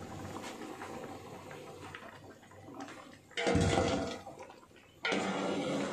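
Beef stock in a large pot being stirred with a long metal skimmer, the liquid swirling and sloshing. Two louder surges of sloshing come, one about three and a half seconds in and another about a second later.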